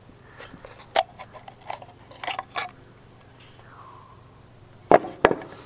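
Crickets chirring steadily while the metal cover of a Lucas voltage regulator is worked off by hand: a few light clicks, then two sharp metal clicks near the end.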